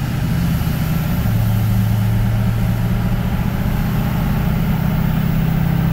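LBZ Duramax 6.6 L turbodiesel V8 pulling steadily under light acceleration, heard from inside the truck's cab.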